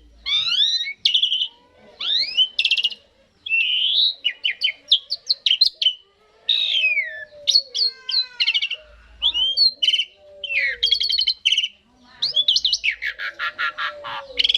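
Asian pied starling (jalak suren) singing a long, varied song: short phrases of whistles, rising and falling sweeps and rapid buzzy rattles, with brief pauses between them.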